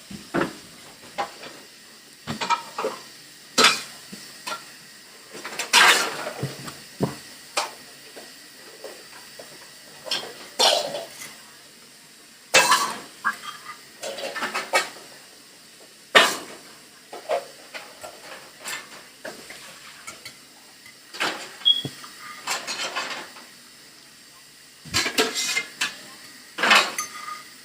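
Cutlery clinking and scraping against a plate at irregular intervals while breakfast is eaten.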